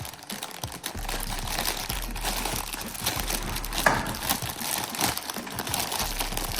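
Plastic parts bag crinkling and loose LEGO pieces clicking and rattling as they are handled and sorted, with many small clicks and one brief squeak near the middle.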